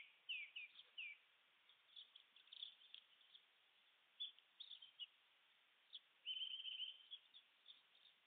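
Faint songbird calls. There is a quick run of short falling chirps in the first second, then scattered chirps, and a rapid trill lasting about a second around six seconds in.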